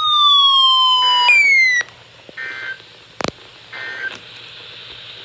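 Electronic siren-style alert tone of an emergency alert broadcast, sweeping steadily downward in pitch, jumping back up once and falling again before cutting off abruptly about two seconds in. Two short, quieter beeps and a click follow.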